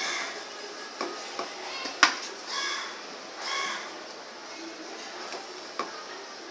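A crow cawing three times in short calls, with a sharp click about two seconds in and a few lighter taps around it.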